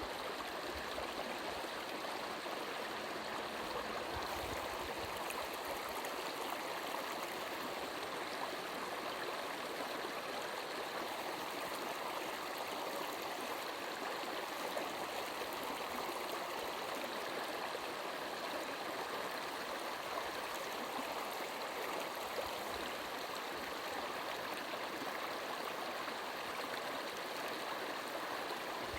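Brook water flowing and babbling over stones in a steady, unbroken rush.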